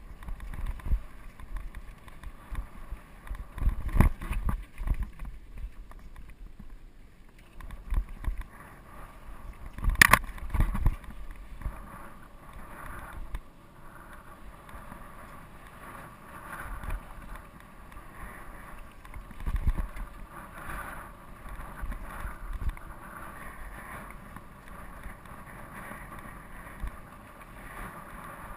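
GT Peace 9'r steel hardtail mountain bike rolling down a dry dirt singletrack: tyres on dirt and the bike rattling, with wind on the microphone. Sharp knocks as the bike hits bumps, loudest about 4 and 10 seconds in, and again near 20 seconds.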